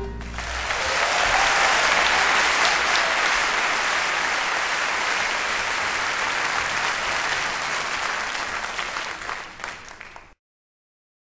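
Audience applauding at the end of a live song performance, dense clapping that thins out and then cuts off abruptly near the end.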